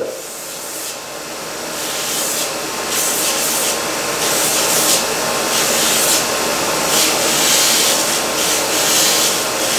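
Belt grinder running while a wooden axe handle is pressed against the moving belt, sanding the factory clear varnish off the handle. A steady grinding hiss over a faint motor hum, growing louder over the first few seconds, with short surges as the wood is pressed harder.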